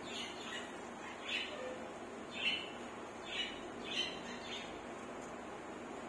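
Budgerigars giving short, soft chirps, about seven in a row at uneven spacing, the loudest about halfway through, over a faint steady room hiss.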